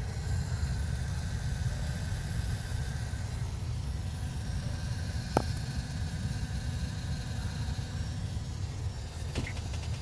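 2000 Honda Civic 1.6 L engine running steadily at idle, with a faint, even high buzz over it and a single click about halfway through. The owner is chasing this buzz, which he puts down to the idle air control valve.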